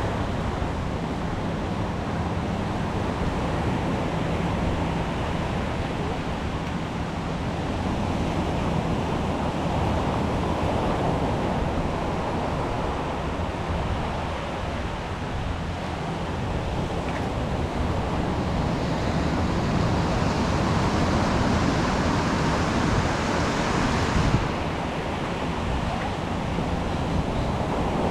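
Surf washing onto the beach, with wind buffeting the microphone. A louder hiss builds about two-thirds of the way through and cuts off sharply near the end.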